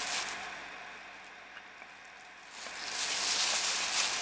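Soft rustling handling noise, dying away about a second in and picking up again a little past halfway, with a couple of faint ticks.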